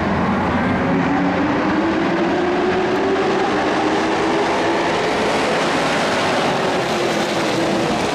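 A pack of dirt-track race trucks running hard together, their engines blending into one continuous din. The engine note climbs over the first few seconds as the pack accelerates, then holds steady.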